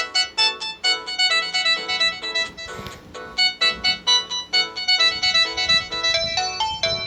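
Samsung GT-E2120 mobile phone ringtone playing: a quick electronic keyboard melody of short notes, about three or four a second.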